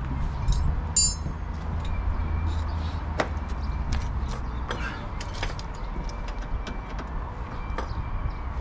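Socket ratchet being worked on the front-suspension knuckle bolt: irregular sharp metallic clicks, roughly one or two a second, with a brief high clink about a second in, over a steady low rumble.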